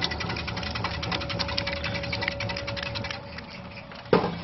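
QP-300 fruit and vegetable slicing machine running with a rapid, even ticking and a steady hum. It drops off about three seconds in, and a single loud knock comes near the end.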